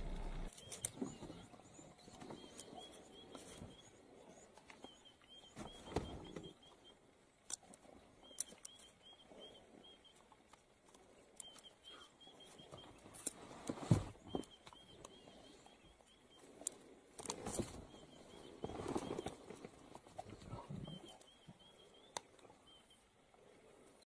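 A leopard feeding on a porcupine: scattered crunching, knocking and rustling as it bites and tears, with quills rattling. The sharpest crunch comes about halfway through. A faint high chirping repeats in short runs in the background.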